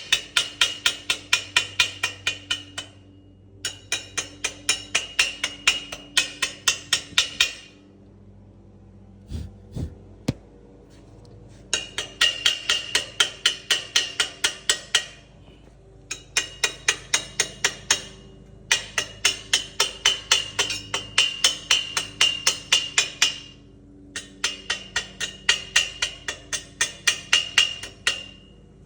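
Rapid, evenly spaced metal-on-metal striking like hammering, about four blows a second, with a high ringing note. It comes in six runs of several seconds, with short pauses between them.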